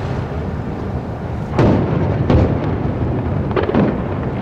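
Aerial fireworks shells bursting in a series of booms, about one and a half, two and a quarter, and three and a half seconds in, each trailing off in an echo, over a steady background rumble.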